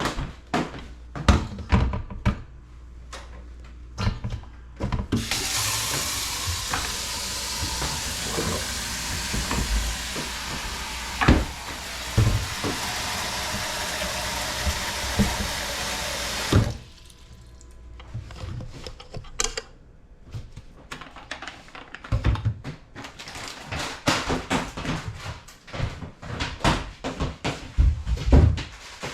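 Knocking and clattering of kitchen items being handled, then a tap running water into a sink for about eleven seconds, starting about five seconds in and cutting off suddenly, followed by more clatter.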